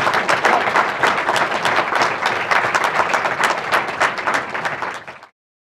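Audience applauding: many hands clapping in a dense, steady patter that cuts off abruptly about five seconds in.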